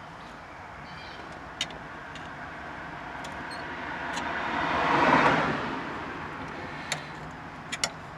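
A car driving past, its road noise swelling to a peak about five seconds in and then fading, with a few faint sharp clicks.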